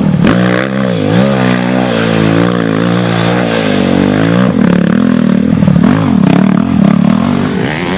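Dirt bike engine revving, its pitch rising and falling again and again as the throttle is worked.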